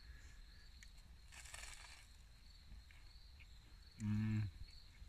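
Crickets trilling steadily in the night background, with a brief soft rustle about a second and a half in. About four seconds in, a man gives a short hummed "mm" while eating a sandwich.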